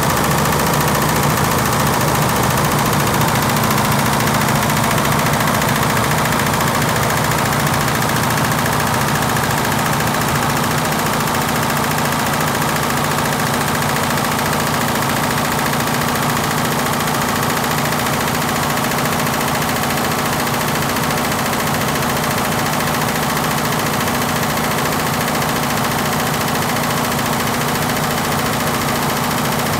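Lejia multi-head computerized embroidery machine running at speed. Its many needle heads stitch together in a fast, even, unbroken mechanical clatter.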